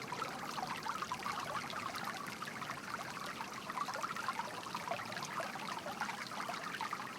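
Water trickling and babbling steadily, like a small stream.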